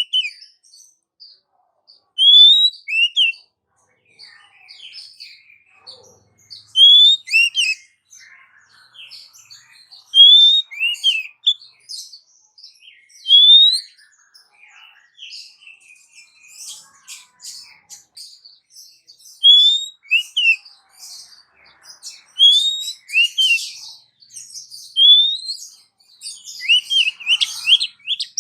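Female Oriental magpie-robin (kacer) calling to a male: short, loud, rising whistled notes, often in pairs or quick runs of three or four, repeated every few seconds. Softer scratchy twittering fills the gaps.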